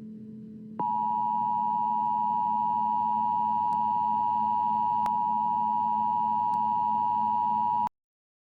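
Emergency Alert System attention signal: a steady two-tone electronic tone that starts just under a second in, holds for about seven seconds, then cuts off suddenly. It marks the start of an emergency alert message. Before it there is a faint low hum.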